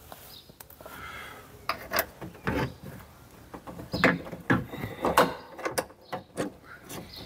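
A 10 mm wrench undoing the bolts of a car door's window-glass guide: irregular metallic clicks and knocks in several short clusters, with a brief squeak about a second in.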